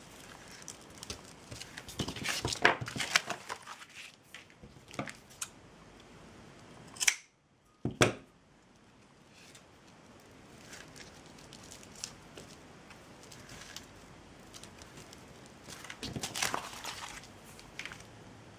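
Handling sounds of jute twine being worked by hand: intermittent rustling and snipping, with two sharp clicks around the middle separated by a moment of dead silence.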